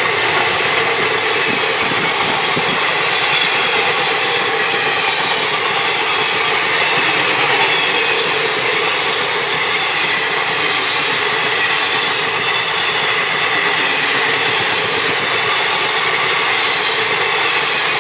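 Indian Railways passenger train's coaches passing close by: steel wheels running on the rails, a loud, steady noise throughout.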